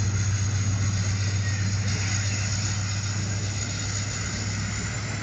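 Passenger coaches of an Indian Railways express train rolling past on the track, a steady rumble and hiss of wheels on rail that eases slightly as the train moves on.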